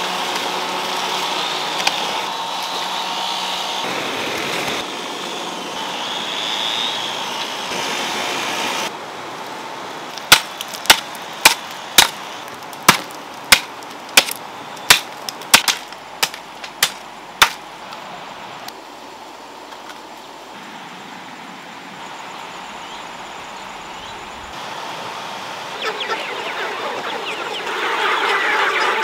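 A hoe chopping into soil: about a dozen sharp strikes, roughly one and a half a second. Near the end, a large flock of chickens clucking.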